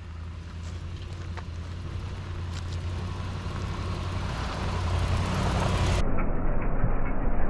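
Vehicle driving: a steady low engine drone under road and tyre noise, growing steadily louder. For the last second and a half the sound is muffled, with the high end gone.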